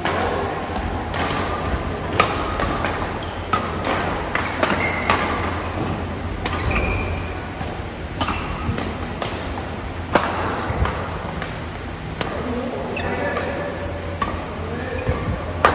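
Doubles badminton rally: sharp, irregular cracks of rackets striking the shuttlecock, several a second at times, over a steady low hum.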